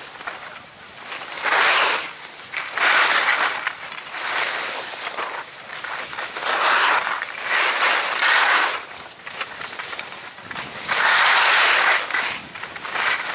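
Skis carving on packed snow: a hissing scrape that swells and fades in about six surges, one with each turn, with a short lull about two-thirds of the way through.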